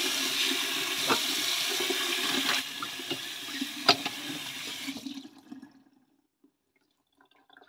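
Water running from a kitchen tap into the sink, with a few short knocks and clinks. The flow eases about two and a half seconds in and stops about five seconds in.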